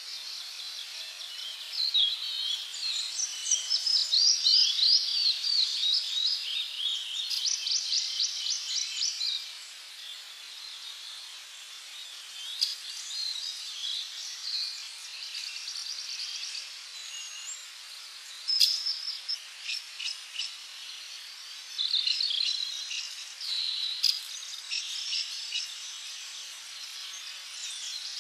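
Tropical birds calling and singing, with rapid whistled trills and chirps, over a steady insect chorus. The birdsong is densest and loudest in the first third, then comes in shorter phrases.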